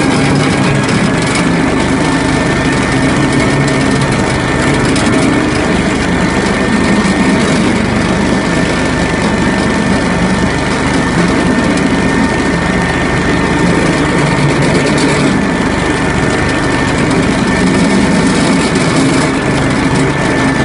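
ZiD-4.5 single-cylinder two-stroke engine running steadily with a thin, steady high whine, driving a screw-cone log splitter as logs are pushed onto the spinning cone.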